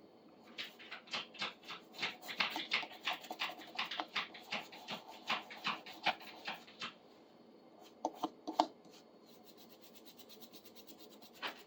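Soft brush scrubbing a rusty pipe wrench with baking soda in quick scratchy strokes, about four a second, for six seconds or so. A few more strokes come about eight seconds in.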